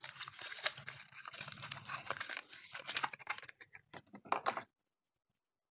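Small packaging being handled and opened: crinkling, tearing and scratching with many sharp clicks. It cuts off abruptly to dead silence about three-quarters of the way through.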